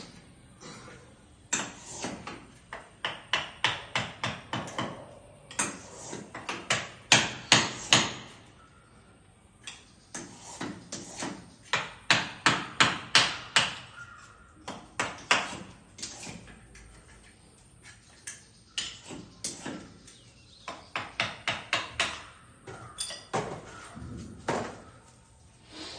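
Hammer tapping in quick runs of about four strikes a second, with short pauses between runs; the loudest strikes come about a third of the way in.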